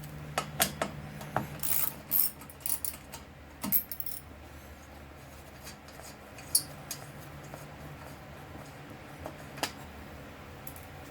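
Small metal screws and hand tools clicking and clinking as screws are taken out of a small-engine carburetor mount: a quick run of sharp clicks in the first four seconds, then two more single clinks, over a low steady hum.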